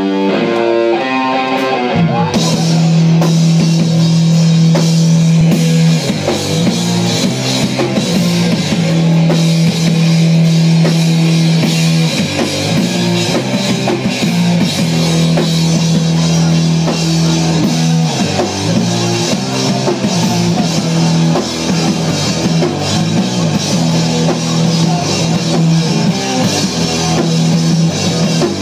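Rock band playing live at full volume: a few single guitar notes, then about two seconds in the drums, bass and guitars come in together and keep going hard.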